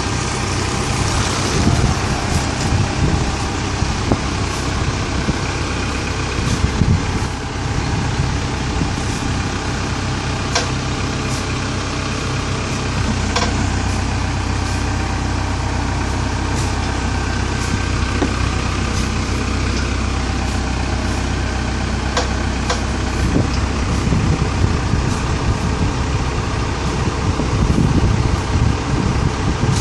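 Komatsu WA100 wheel loader's diesel engine running steadily, with faint clicks here and there.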